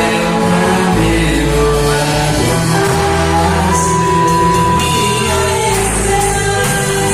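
Live worship band music: sustained chords with electric guitar and a singing voice, including one long held note about halfway through.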